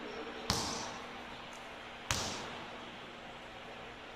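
A basketball bouncing on the court twice, about a second and a half apart, each bounce echoing in the gym.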